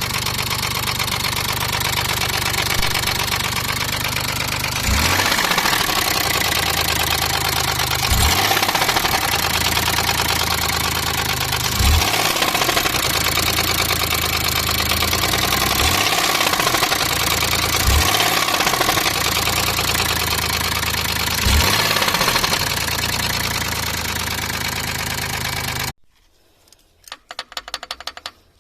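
Daewoo Matiz engine running with a knock, blipped briefly about six times. It stops abruptly near the end, leaving only a faint, rapid clicking.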